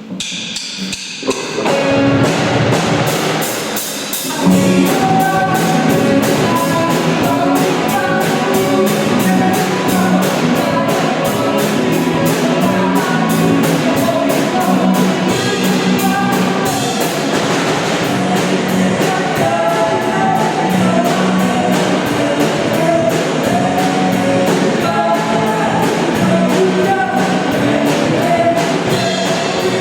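A band playing a song with sung vocals over drum kit and instruments, with a steady beat. It starts quietly, and the full band comes in about two seconds in.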